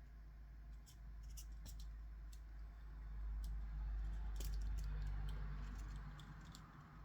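Faint handling sounds of hand soldering work: scattered small clicks and light taps over a low steady hum that grows a little louder in the middle.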